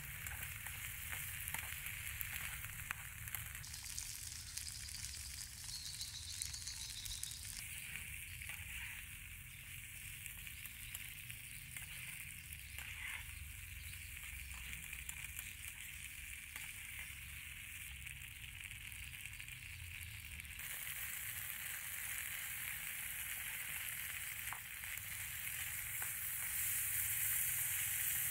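Beef and vegetables sizzling in a nonstick frying pan as they are stir-fried, with light clicks and scrapes of a metal spatula against the pan. The sizzle grows louder about two-thirds of the way through, once fresh celery has gone into the pan.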